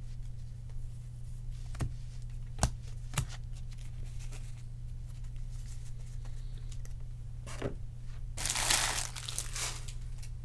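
Hands handling trading cards and a foil card-pack wrapper. There are a few light clicks and taps, then about a second of crinkling near the end, over a steady low hum.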